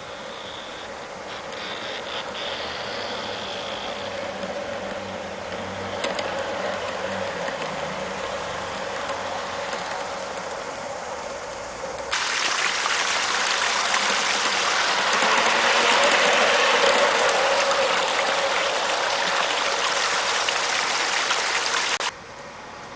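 Steady mechanical running of a 1:29-scale model freight train on garden railway track: motor and gear whir with a faint steady hum. About halfway through it turns abruptly louder and noisier, then drops off sharply near the end.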